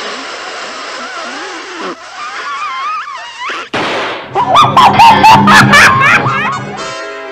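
Cartoon soundtrack: a hissing rush with wavering cries, a sudden bang about three and a half seconds in, then loud, rapidly wavering cartoon vocal cries.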